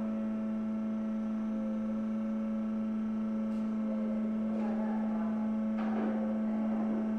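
Steady electric hum of the cold press's hydraulic power unit running, with a faint knock about six seconds in.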